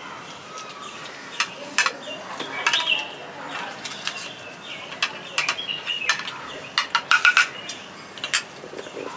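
Small birds chirping, with scattered sharp clicks and clinks from plates and food being handled, several in quick succession about seven seconds in.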